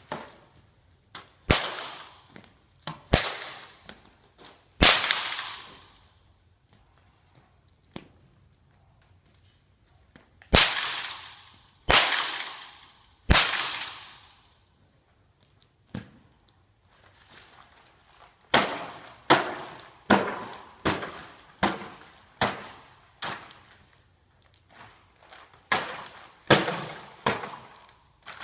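A whip cracked repeatedly during horse groundwork: sharp cracks, each trailing off in a short fading hiss, in spaced groups with a quicker run of cracks past the middle, used to test that the horse is not bothered by the noise.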